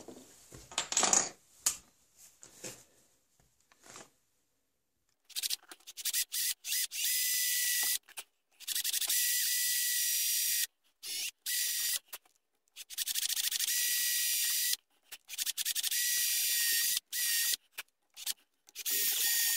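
Bosch cordless drill running in repeated bursts, short blips and runs of a second or two, as its bit bores holes into a wooden gunstock; a steady high motor whine starting about five seconds in, after a few faint handling knocks.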